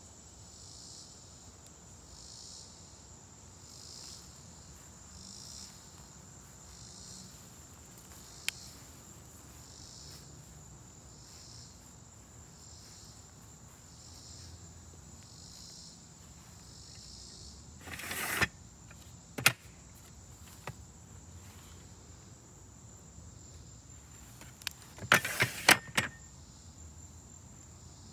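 A steady high insect chorus with a softer pulse about once a second. A few sharp clicks and knocks stand out, one pair about two-thirds of the way in and a louder cluster near the end.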